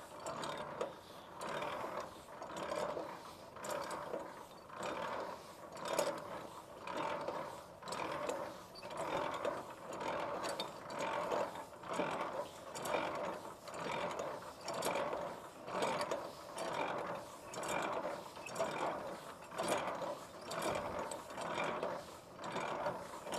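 Semi-trailer landing gear being hand-cranked up in high gear: the crank and leg gearbox make a rhythmic ratcheting, gear-turning noise that pulses a little over once a second, once per turn of the handle, as both legs lift quickly off the ground.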